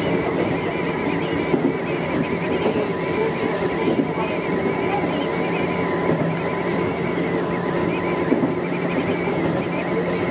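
Electric commuter train running at a steady speed, heard from inside the cab: a constant rumble of wheels on rail with a low hum, a steady high tone and a faint wavering whine.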